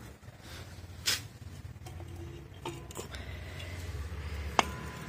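A few faint clicks and knocks of metal motorcycle brake parts being handled, over a low steady hum. The sharpest clicks come about a second in and again near the end.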